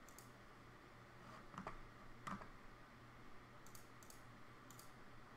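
Faint clicking at a computer mouse and keyboard: two louder clacks near the middle, then a few light, sharp paired ticks in the second half.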